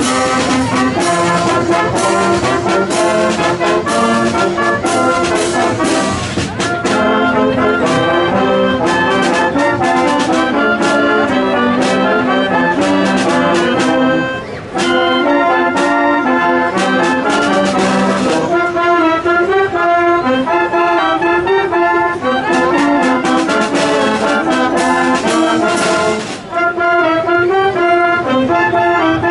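Wind band of trumpets, saxophones and tuba playing a tune together, with three brief breaks between phrases.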